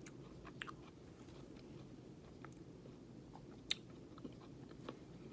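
Faint chewing of a crunchy granola cookie, with scattered soft crunching clicks, one sharper about three and a half seconds in.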